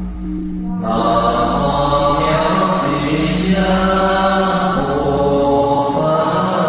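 Buddhist mantra chanting in homage to Manjushri Bodhisattva: voices intone long, sustained notes that step from pitch to pitch. The sound grows louder and fuller about a second in.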